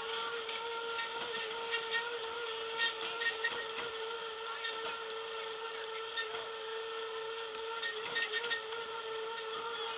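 Boardwalk tram car running along the wooden boardwalk: a steady, even whine, with scattered light clicks and knocks, a few around two to three seconds in and again near eight seconds.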